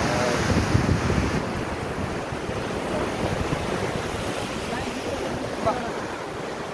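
Wind buffeting the microphone over the rush of water from a moving boat, a steady noisy wash, a little louder in the first second or so.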